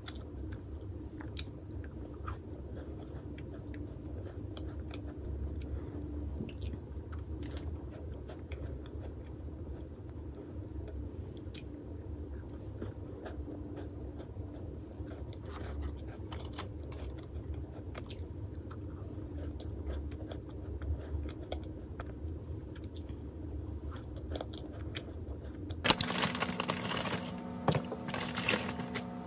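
Close-up chewing of butter cookies, with faint crisp bites scattered through, over a low steady hum. Near the end it gives way to louder kitchen noise with a steady hum.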